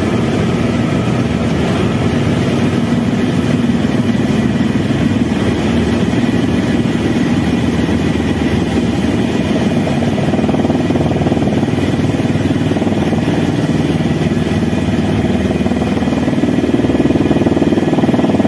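Airbus H130 helicopter's main rotor and turboshaft engine heard from inside the cabin during the landing approach. A loud, steady rotor noise with a faint steady turbine whine above it, getting a little louder near the end.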